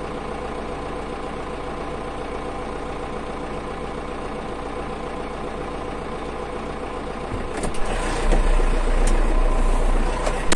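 Tractor's diesel engine idling steadily. About three-quarters of the way in it gets louder, with a low rumble and a few knocks.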